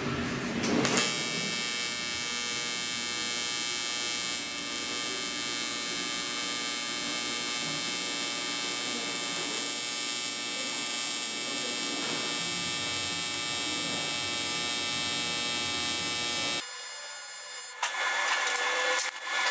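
AC TIG welder arc on aluminium tubing, a steady electrical buzz with a bright high edge. It starts about a second in and cuts off sharply about three seconds before the end.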